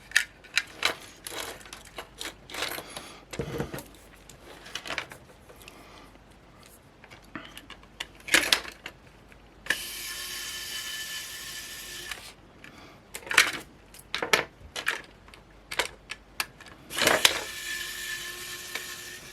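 Small hard plastic and metal parts of a cheap camera clicking, snapping and clattering as it is pried apart by hand. Twice, about ten seconds in and again near the end, a small motorised tool runs with a steady whine for a couple of seconds.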